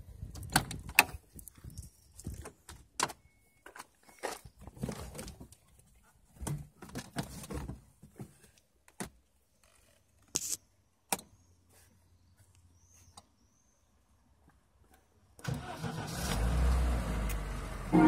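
A run of clicks and clunks from a Lada Niva's door handle, door and cabin as someone gets in, then two sharp clicks as the cover of the dash toggle switch is flipped and the switch thrown, followed by a faint low hum. Near the end a louder, rising noise builds.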